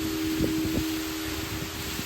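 Ambient background music: low tones held steadily, like a singing bowl's ring, over a steady even hiss.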